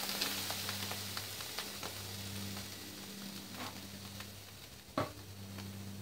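Near-boiling water poured into a tall container standing in a stock pot, hissing and splashing as steam rises, with scattered small clicks and one sharp knock about five seconds in. A steady low hum runs underneath.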